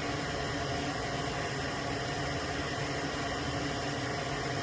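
Steady background hiss with a faint hum, unchanging and with no distinct events.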